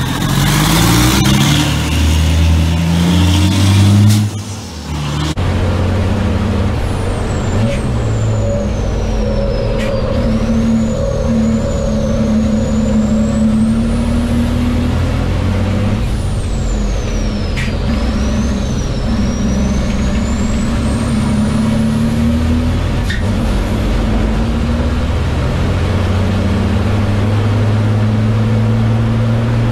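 Racing truck's diesel engine pulling away hard, its pitch climbing through the gears. At about five seconds the sound switches to inside the cab on track, where the engine pitch rises and falls, a high whistle twice dips and then climbs, and a few sharp clicks come through.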